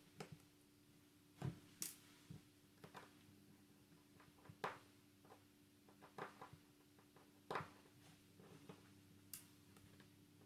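Faint, irregular clicks and small taps from a smartphone being taken apart by hand, its small plastic and metal parts and tools touching, about a dozen in all, over a faint steady hum.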